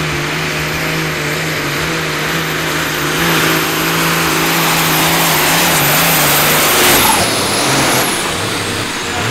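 Twin turbocharged diesel engines of a roughly 2,000 hp pulling tractor running at full power under load, dragging the weight sled. About seven seconds in, the steady engine note changes and a high whine drops in pitch.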